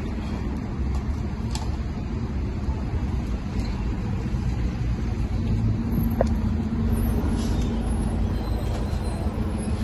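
Steady low rumble of vehicle traffic, with a few faint clicks.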